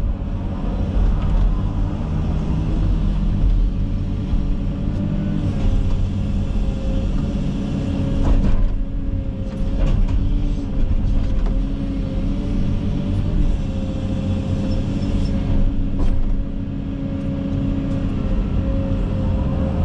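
Komatsu 360 excavator's diesel engine running steadily under working load with a constant hydraulic whine, broken by a few sharp cracks and knocks as brush and limbs are handled.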